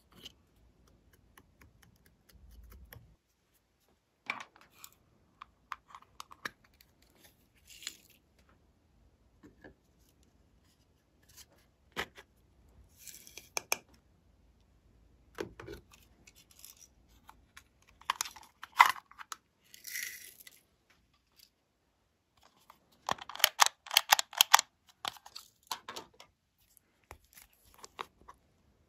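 Small plastic bottles and tubes handled close up: scattered clicks, taps and short rustles as caps are worked open and their glitter contents shaken out, with a quick run of rattling clicks later on.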